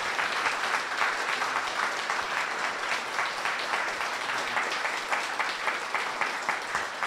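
An audience applauding, many hands clapping steadily, tapering slightly toward the end.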